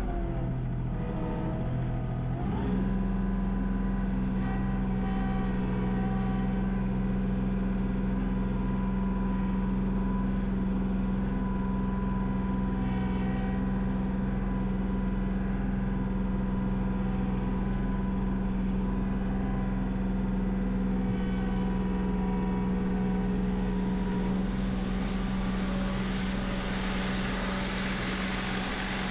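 John Deere 2038R compact tractor's three-cylinder diesel engine running steadily, heard from inside the cab, just come up to working temperature. Its pitch rises about two and a half seconds in and then holds. A hiss builds up near the end.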